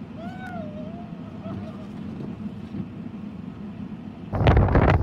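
A steady low rumble with a brief gliding voice-like call in the first two seconds, then about four seconds in a sudden switch to loud, gusting wind buffeting the microphone in blizzard conditions.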